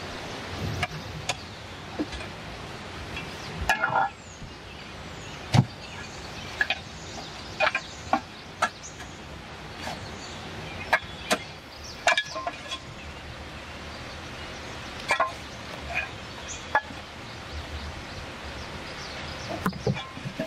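Hands clearing ground cover: plants pulled and twigs, leaves and stones snapping and crackling in irregular sharp clicks, over a steady background hiss.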